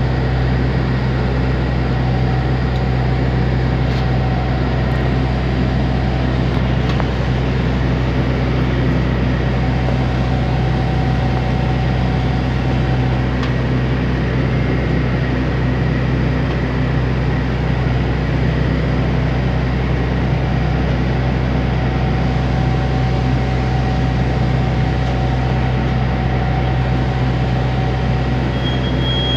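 Steady low drone of an airport apron bus's engine and air conditioning, heard from inside the bus as it drives across the apron.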